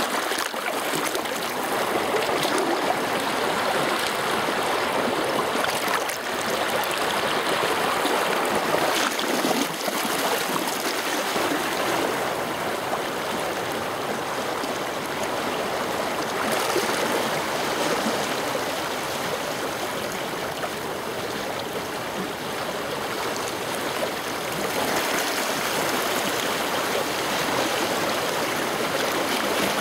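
Fast-flowing mountain stream, swollen with overnight rain, rushing steadily.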